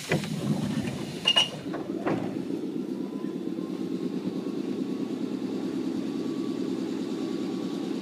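Nankai 7100 series train door sliding shut with a knock, followed about a second later by a short, loud, high squeak: the abnormal squeal these doors give each time they open or close. Then the train's running noise sets in and holds steady as it pulls away.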